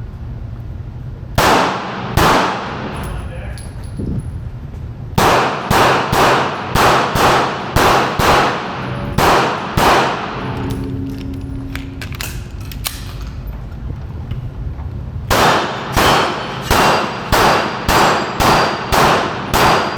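Smith & Wesson Shield Plus compact pistol firing a timed match stage: two shots, then a fast string of about ten shots, a pause of about five seconds, then another fast string of about ten shots, a little under half a second apart.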